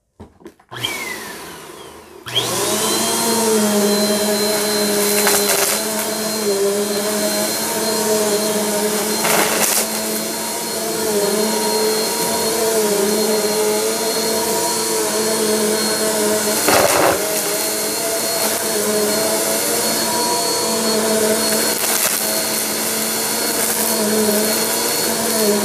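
Upright bagless vacuum cleaner switched on about two seconds in after a few clicks, its motor then running steadily with a slightly wavering pitch as it is pushed over carpet. Several sharp clatters, about four, as small hard debris such as rocks and coins is sucked up.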